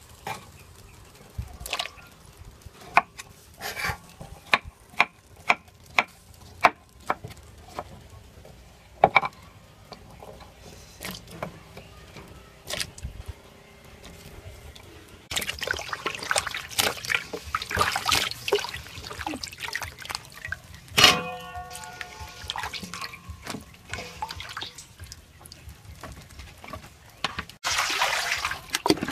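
A kitchen knife cutting vegetable chunks on a wooden chopping board, with sharp knocks about twice a second for the first ten seconds. Then water splashes and pours in a large steel bowl, with one ringing metal clank about two-thirds of the way through.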